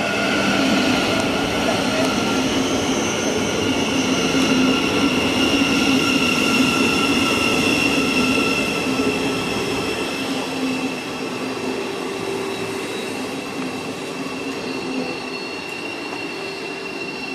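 Thameslink Class 700 electric multiple unit running slowly alongside the platform, its traction equipment giving a steady high electric whine over the rumble of the wheels. The sound is loudest in the middle and eases off gradually toward the end.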